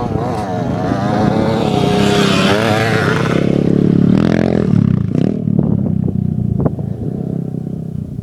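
Motocross dirt bike engine revving up and down as it passes close by, loudest about four seconds in, then fading away.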